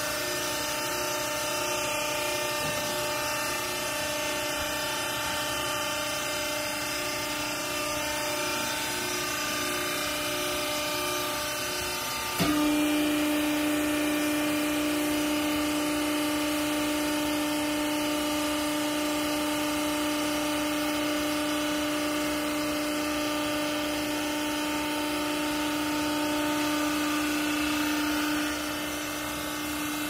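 Hydraulic baler's electric pump unit running with a steady hum and whine. About twelve seconds in, a louder steady whine sets in as the hydraulic ram is worked, and it eases again near the end.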